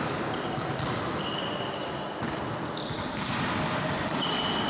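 Indoor volleyball play echoing in a sports hall: the ball being struck, and several short, high squeaks of shoes on the court floor.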